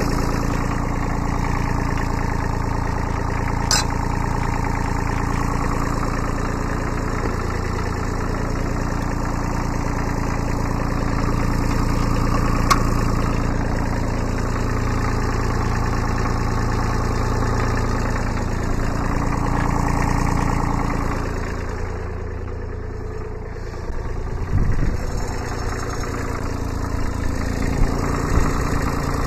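Kubota B7100 sub-compact tractor's small three-cylinder diesel engine idling steadily, with a few short knocks near the end.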